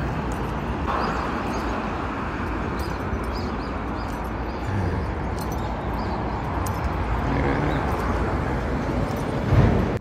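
Loud, steady outdoor noise, a low rumble and hiss, with faint short high ticks scattered through it and a louder low bump about half a second before the end.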